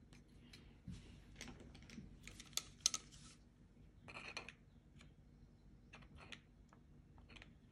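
Faint clicking and light scraping of needle-nose pliers and small metal parts against an aluminium carburetor body as it is handled and taken apart. The clicks come in scattered clusters, loudest about three seconds in.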